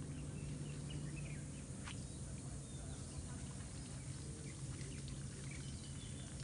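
Birds chirping sparsely over a steady low hum, with a single faint click about two seconds in.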